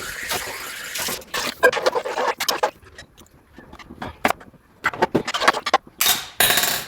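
Pot cooking: a steady hiss for about a second, then irregular scrapes and knocks of a utensil against the pot.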